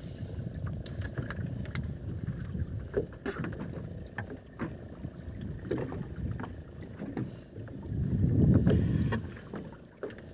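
Low rumble of wind and water around a small fishing boat at sea while a longline is hauled in by hand, with scattered light knocks and a louder swell of rumble about eight seconds in.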